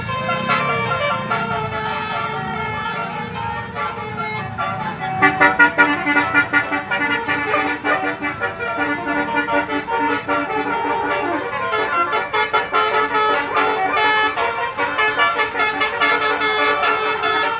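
A twelve-note basuri telolet bus horn playing a tune in quick changing notes, louder and choppier from about five seconds in.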